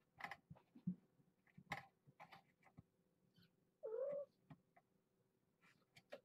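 A cat meows once, briefly, about four seconds in. Faint scattered taps and rustles come before and after it.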